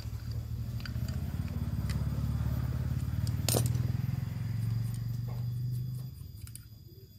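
Small metallic clicks and clinks of a motorcycle carburettor being taken apart by hand with pliers, one sharp click about three and a half seconds in, over the low rumble of a vehicle engine that swells and then fades away about six seconds in.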